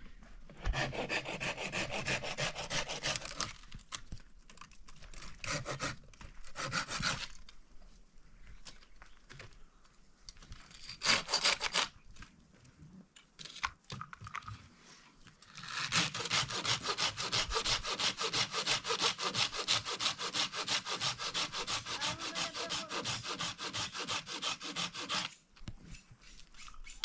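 Rough, rasping scraping strokes in several spells. The last and longest runs about ten seconds, then stops suddenly.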